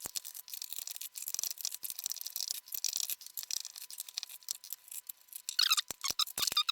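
Handling noise from taking apart a robot vacuum's plastic housing: a dense run of small clicks, taps and scratchy rubbing of parts. Near the end come louder squeaky creaks of plastic.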